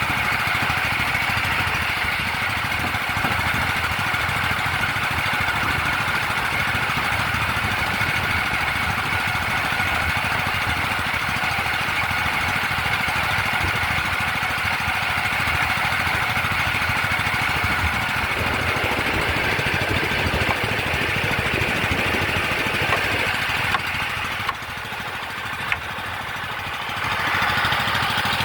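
An engine running steadily, dropping quieter for a few seconds near the end before picking up again.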